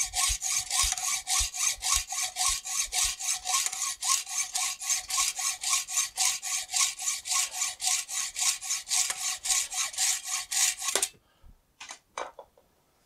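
Hacksaw cutting through a steel bar held in a bench vise, in fast even strokes about three a second. The sawing stops near the end, followed by a few light clicks.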